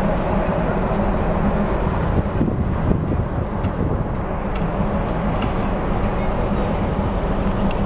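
Steady low rumble and hum of a river cruise ship's engines while it is under way.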